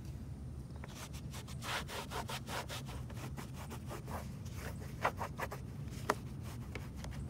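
Microfiber towel rubbing back and forth over a car's interior door panel damp with all-purpose cleaner. The wiping strokes come quickly one after another from about a second in, with two sharper, louder strokes near the end.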